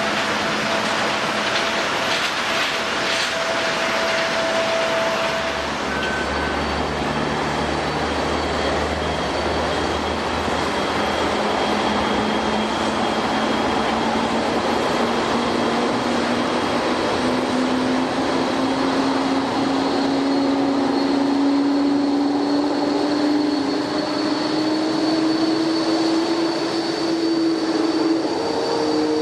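Jet airliner engines running, a dense rushing noise with a low whine that climbs slowly in pitch through the second half, and faint high-pitched tones.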